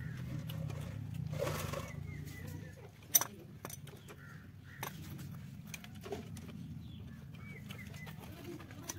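Socket wrench working a bolt on a harvester's track roller: scattered sharp metal clicks and clinks, one loud one about three seconds in, over a low steady hum.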